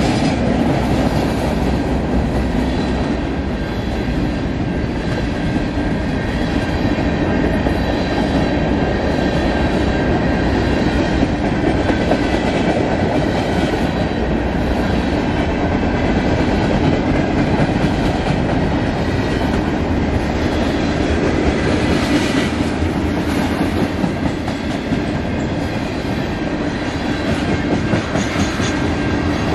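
Freight cars of a manifest train rolling past, their steel wheels running over the rails in a steady loud rumble, with faint high steady tones running through it.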